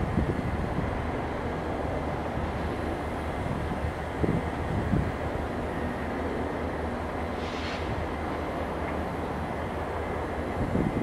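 Steady low rumble of the steel truss swing span of the BNSF Columbia River railroad bridge turning slowly shut on its drive machinery, with wind now and then buffeting the microphone and a brief high squeak about two-thirds of the way through.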